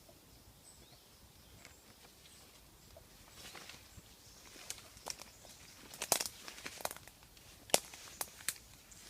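Footsteps through dry woodland floor litter, twigs and leaves cracking and crunching underfoot. The cracks are irregular, starting about three seconds in and growing sharper and louder in the second half.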